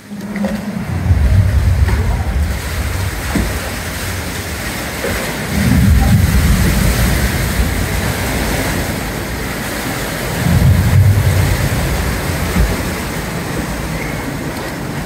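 Water rushing and splashing around a log flume boat as it rides along the channel, a steady loud wash with three deeper rumbling swells.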